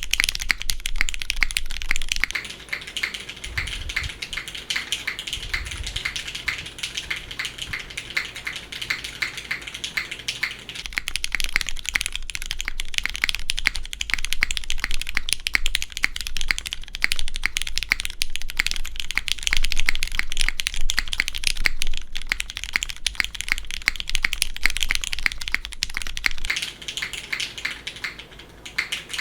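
Continuous fast typing on a custom mechanical keyboard with a polycarbonate case, an aluminium plate, lubed Cherry MX Black linear switches and GMK keycaps: a dense stream of keystrokes.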